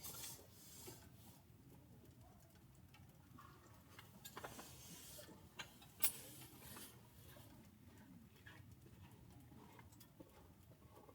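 Faint, scattered ticks and crackles from a wood-burning stove with split firewood alight inside, over a low hiss, with a sharper tick about 6 seconds in.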